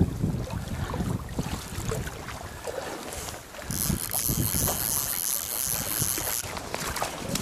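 Wind buffeting the microphone as an uneven low rumble, with scattered knocks. A high hiss starts about halfway through and stops about three seconds later.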